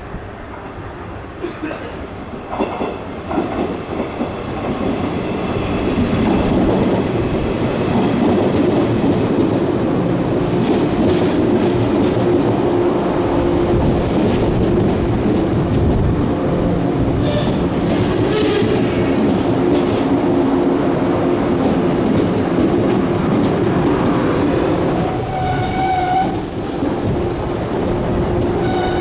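JR East 485-series electric limited express pulling into a station platform and slowing, with its wheels squealing. It grows louder over the first six seconds, and a higher-pitched squeal sets in about twenty-five seconds in as it brakes.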